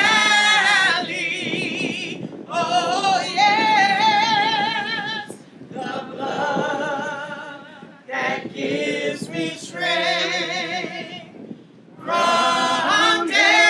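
People singing unaccompanied, a woman's voice with wide vibrato carrying the melody, in long phrases broken by short pauses for breath.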